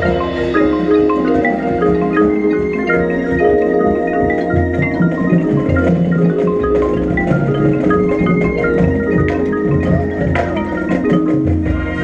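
High school marching band's front ensemble playing a quick run of repeated notes on marimbas and xylophones over sustained low notes.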